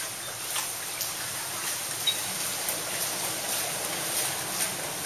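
Shallow floodwater splashing and trickling: a steady watery hiss with small, irregular splashes.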